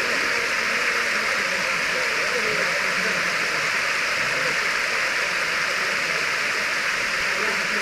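Waterfall cascade rushing steadily, a constant hiss of falling water.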